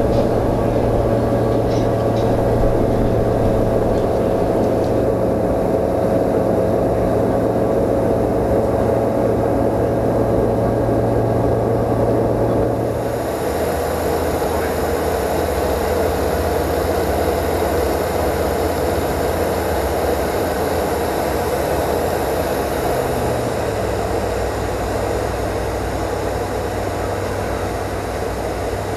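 Steady drone of a CSA PS28 Cruiser light aircraft's Rotax 912 four-cylinder engine and propeller in flight. The sound changes abruptly about halfway through, and the engine note steps down slightly about three quarters of the way in.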